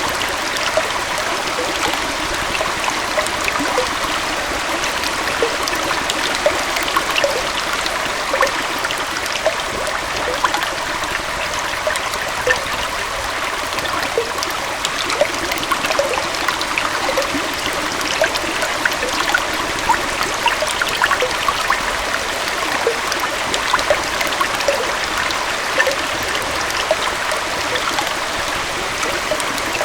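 A small forest waterfall and stream flowing steadily, a continuous rush of water with constant small splashes and trickles.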